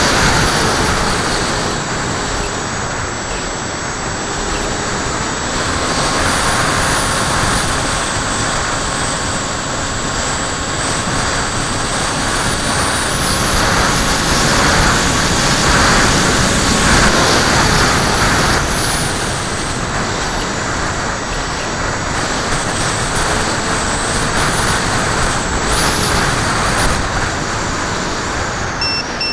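Airflow rushing over the onboard camera's microphone of a HobbyKing Skyfun flying wing in flight, with a faint steady whine from its electric motor and propeller underneath. The rush swells and eases as the plane turns and changes speed, loudest about halfway through.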